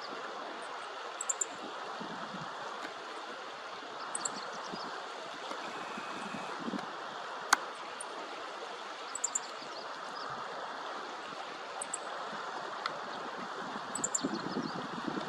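Steady rush of running water, with small birds giving short, high-pitched chirps in little clusters every few seconds. A single sharp click about halfway through.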